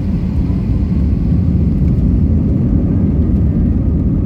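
Airbus A320 jet engines on the takeoff run, a steady loud low rumble.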